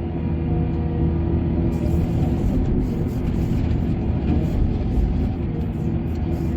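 Heavy diesel engine of mining machinery running steadily, a low drone.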